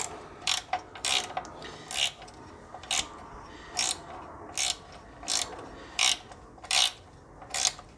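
Ratchet wrench being worked back and forth to tighten a bolt on a wood chipper's blade, a short burst of ratchet clicks on each stroke, a little more than one stroke a second.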